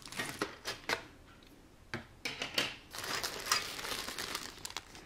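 Plastic bags of model-kit parts being handled: a few scattered clicks, then steadier crinkling and rustling from about two seconds in.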